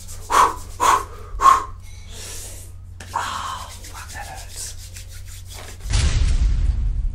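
A man's forceful breaths or grunts, three in quick succession about half a second apart, then quieter breathing and movement. Guitar rock music with a heavy bass comes in near the end.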